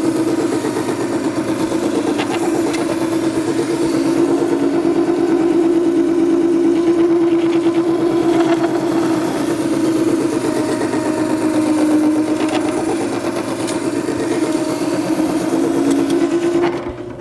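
Makita 98202 horizontal wet wheel sharpener running with a steady motor hum while a planer knife held in its jig is ground on the wet stone wheel. The sound drops away near the end.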